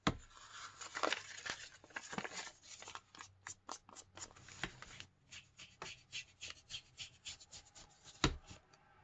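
Paper rustling and crinkling as it is handled, with quick dabbing and rubbing strokes of an ink blending tool against an ink pad and along the paper's edges. Two sharper knocks stand out, one right at the start and one near the end.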